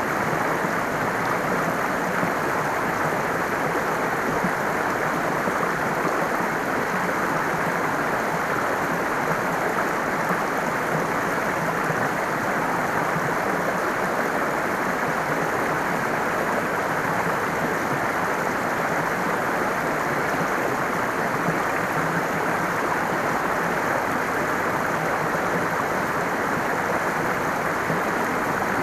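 Running water flowing steadily, an even rush with no change in level.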